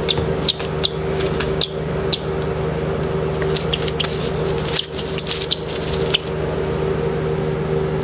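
Steady machine hum in a small room, with short scratchy ticks and rustles over the first six seconds from a downy chick being handled while a metal band is fitted to its leg.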